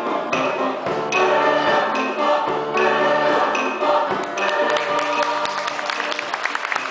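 Mixed choir singing a Chilean cueca; about four and a half seconds in, applause breaks out over the last sung notes and keeps going.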